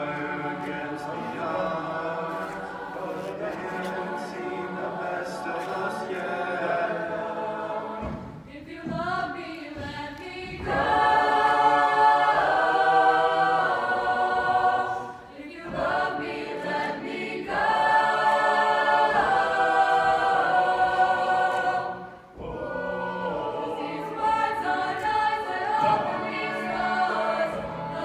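Mixed men's and women's choir singing a cappella in sustained chords. The singing swells louder about eleven seconds in and again past the middle, with brief breaks between phrases.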